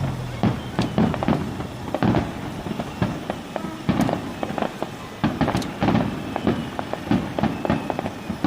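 Aerial fireworks bursting in quick, irregular succession, several booms and sharp cracks a second, each trailing off in a short echo.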